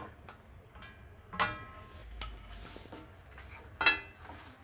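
A metal utensil clinks twice against a cooking pan, each clink ringing briefly, with faint scraping and ticks in between.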